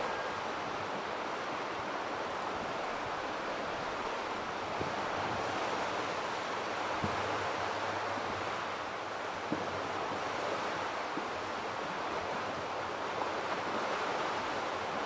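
Spring ice drift on a river: a dense mass of broken ice floes moving downstream, giving a steady rushing hiss as the floes rub and grind against each other, with a few faint clicks.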